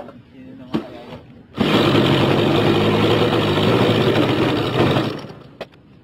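Handheld electric starter pressed to the spinner of a model airplane's glow engine, whirring as it cranks the engine over for about three and a half seconds, then winding down.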